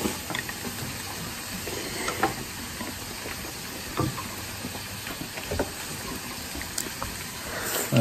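Food frying in a pan with a steady sizzle, with a few light clicks scattered through it.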